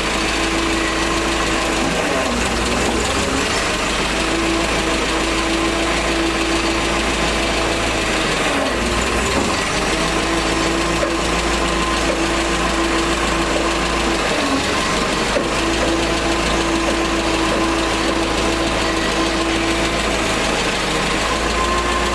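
TCM FG25N2S forklift's carbureted engine idling steadily while the steering is worked, its note dipping briefly three times (about two, nine and fourteen seconds in) as the power steering takes load. The freshly rebuilt power steering cylinder is still full of air and is being cycled to purge it.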